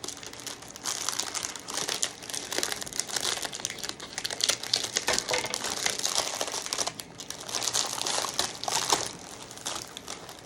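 Snack packaging crinkling and rustling as it is handled and opened, in a run of bursts with short pauses.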